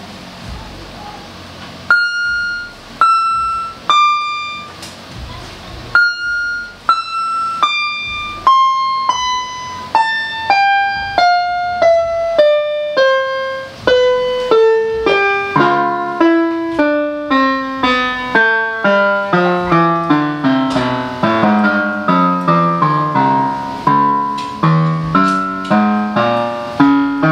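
GL-400 electronic keyboard sounding single notes one key at a time, stepping down the keyboard from high to low, coming faster about halfway through and turning back upward near the end: each key being pressed in turn to check that it works.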